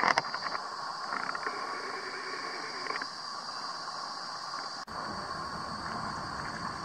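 Summer river ambience: a steady high insect drone over the wash of shallow river current, with a few sharp clicks at the start. A low rumble comes in after a brief break about five seconds in.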